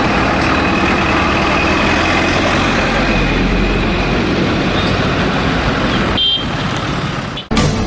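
A city bus engine running steadily with road noise as the bus pulls out onto the road. The sound breaks off sharply near the end.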